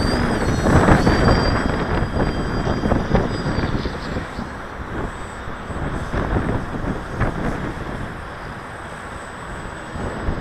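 Radio-controlled model airplane's motor and propeller whining as it flies overhead. The high whine holds and then bends in pitch for the first few seconds, with a rushing noise under it that fades after about four seconds as the plane moves away.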